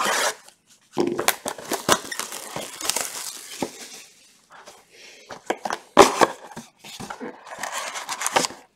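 Plastic shrink-wrap crinkling and tearing as it is stripped off a sealed cardboard trading-card box, in two spells of rustling and sharp crackles, one about a second in and one about six seconds in.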